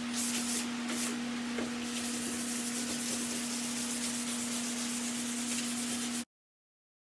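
Hand sanding the cherry-finished top of a wooden side table with medium-grit sandpaper: a scratchy rubbing hiss, in distinct back-and-forth strokes at first and then steadier, over a steady low hum. It cuts off abruptly about six seconds in.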